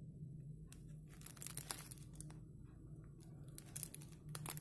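Thin plastic film wrapper of an onigiri crinkling and tearing as it is opened by hand, in faint irregular crackles that bunch up a little over a second in and again near the end.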